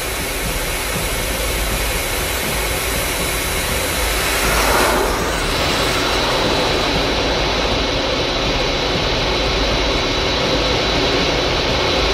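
Steady engine roar of a missile flying low and fast, swelling briefly about five seconds in.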